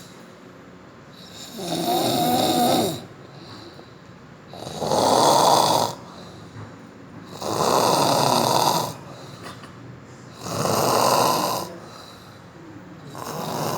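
Loud, regular snoring: five long snores about three seconds apart, the first with a steady droning tone and the rest rough and rasping.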